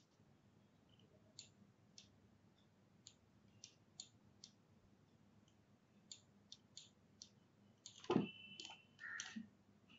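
Quiet computer mouse clicks, about a dozen scattered at uneven intervals, with a louder brief noise about eight seconds in.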